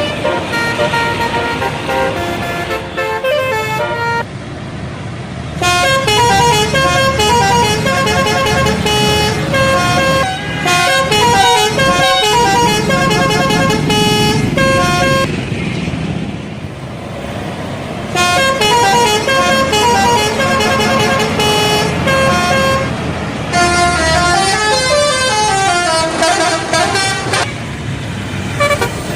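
Bus 'telolet' horns playing fast, stepping multi-note melodies in several long bursts with short breaks, over the low running of the bus engine.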